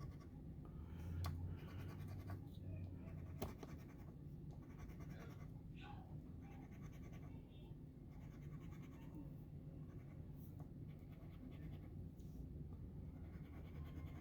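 Faint scraping and light tapping of a coin scratching the coating off a paper scratch-off lottery ticket, in short irregular strokes over a low steady hum.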